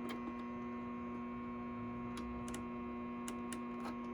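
Steady electrical mains hum made of several fixed tones, with a few faint ticks scattered through it.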